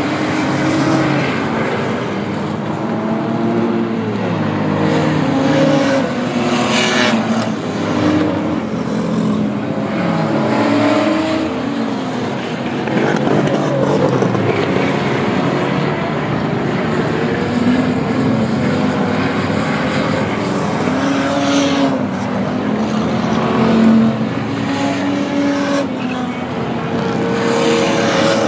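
Several V6 enduro stock cars racing in a pack, their engines revving up and down as they go through the turns, with several engine notes overlapping.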